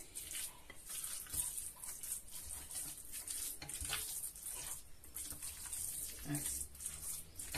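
Raw meatball mixture of minced meat, egg, cream, milk and breadcrumbs being mixed in a bowl: soft, irregular scraping and handling noises.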